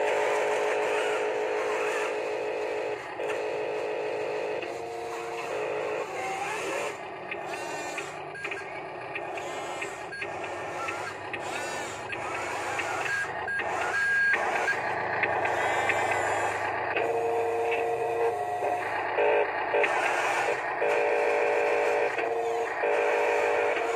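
Huina RC wheel loader's built-in sound module playing a simulated diesel engine note and beeping through its small speaker, starting and stopping in short blocks. A rougher, grinding stretch of noise fills the middle, where the engine sound drops out.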